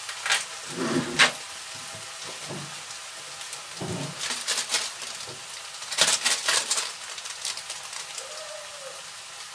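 Chopped onion frying in hot oil in a non-stick kadai: a steady sizzling hiss with scattered crackling spatters. The spatters are loudest about a second in and again around six seconds in.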